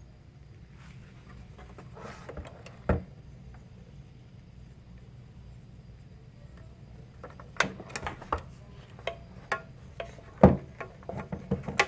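Handling of a DJ mixer setup: scattered clicks and knocks, a sharp one about three seconds in and more frequent ones in the second half, the loudest near the end, over a low steady hum.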